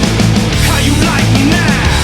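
Loud heavy rock soundtrack music with distorted guitar and a steady beat.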